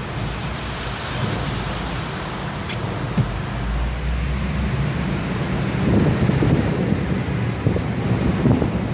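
A car driving on a wet road: steady road and tyre noise with wind buffeting the microphone, gusting harder from about six seconds in.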